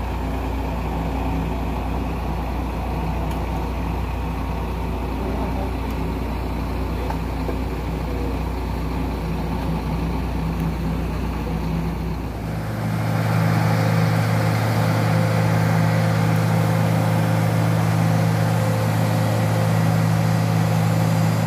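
The engine of heavy machinery at a road-concreting site runs with a steady hum. About twelve seconds in it turns louder, with a stronger, higher hum.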